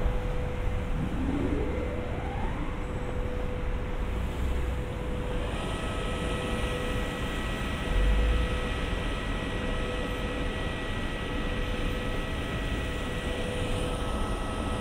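CR400BF-B Fuxing high-speed electric train rolling slowly past, with a steady running noise and electric whines. One whine rises in pitch in the first two seconds, and several steady whine tones set in about five seconds in. A short low thump comes about eight seconds in.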